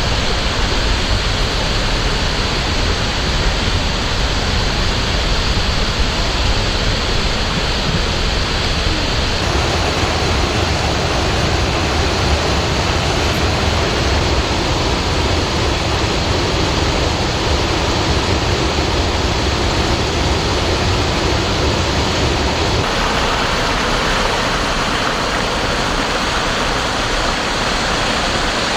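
Rushing water, a steady roar of falling or fast-flowing water, whose character changes abruptly twice, about a third of the way in and again near the end.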